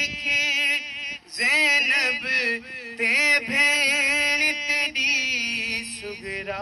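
A man singing a noha, a Shia lament, into a microphone: long, wavering melismatic lines with short breaks for breath between phrases.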